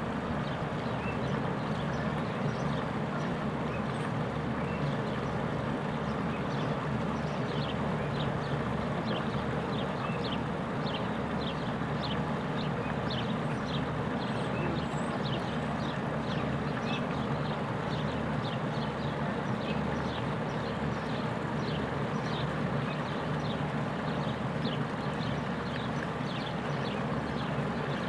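Small rock waterfall splashing steadily into a pond, with short high chirps or ticks repeating about twice a second from a few seconds in.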